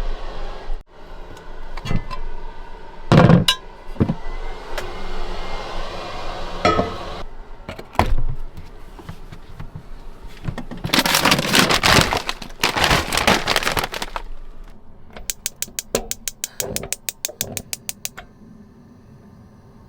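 Cooking preparation in a small camper: scattered knocks and clatter of pans and packaging, then a few seconds of steady rushing noise about halfway through. Near the end comes a quick, even run of about a dozen clicks.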